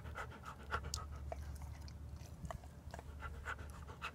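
Black and white husky panting rapidly, about four breaths a second, filmed up close. The panting stops for about two seconds in the middle, where only a few small mouth clicks are heard, then starts again near the end.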